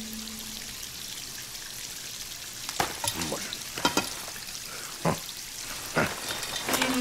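Cartoon sound effects of a plumbing job gone wrong: a steady hiss of water spraying, broken by about five sharp knocks. A held music note fades out at the start.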